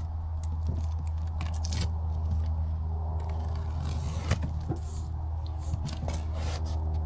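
Cardboard packaging being handled and opened: scraping, rustling and a run of short clicks and knocks, with a sharper knock about four seconds in, over a steady low hum.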